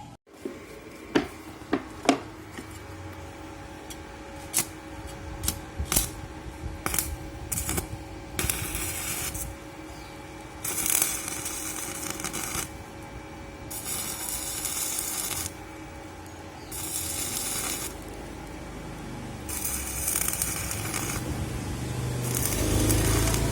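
Inverter stick welder under test after repair: sharp taps as the electrode is struck, then the arc crackling in about six short runs of one to two seconds each, over the machine's steady hum.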